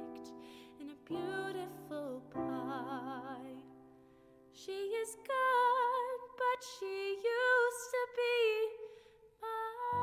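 A woman singing long, held notes with a wavering vibrato over instrumental accompaniment. The singing grows louder about halfway through.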